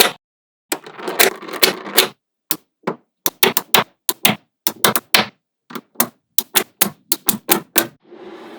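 Small magnetic balls clicking and snapping together in quick, irregular sharp clicks, with a stretch of rattling clatter about a second in and a softer rushing sound near the end.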